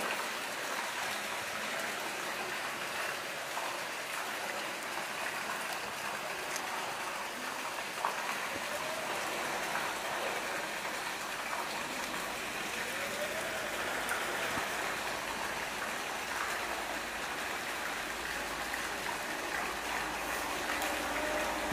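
Steady rushing hiss of water in an underground brick tunnel while a small boat passes below, with a low rumble building in the last few seconds.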